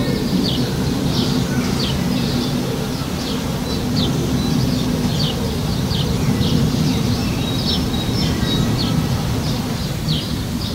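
Small birds chirping over and over in short, high chirps, against a steady low background din.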